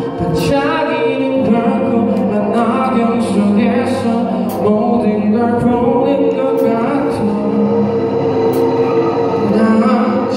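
Live indie rock band playing: a male singer sings over electric guitar, bass guitar and drums, with cymbal hits throughout.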